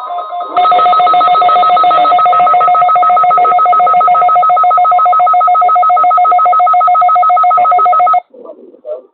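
Weather radio alarm: a loud, rapidly pulsing two-pitch alert tone, ringing like a telephone, that sounds for about seven and a half seconds and cuts off suddenly.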